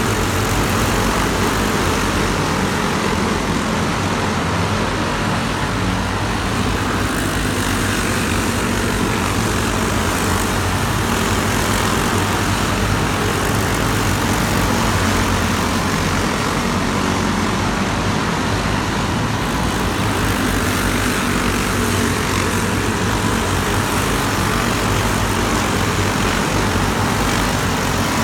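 Small single-cylinder racing kart engines running steadily on the track as karts circle during a race.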